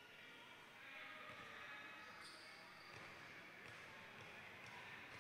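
Faint basketball bounces on a hardwood gym court, a few separate thuds as the ball is bounced before a free throw, over a soft murmur of voices in a large hall.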